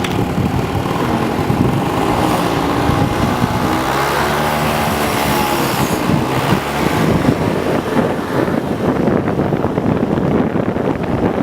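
Vehicle driving noise picked up by a mounted dashcam's microphone: engine and road noise, with the engine note rising and falling between about two and seven seconds in.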